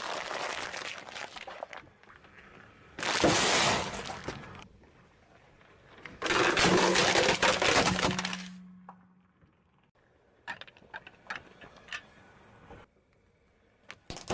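Objects crushed under a car's tyres, breaking and cracking in three loud crunches of a second or two each, then a spell of lighter crackling, with another crunch near the end.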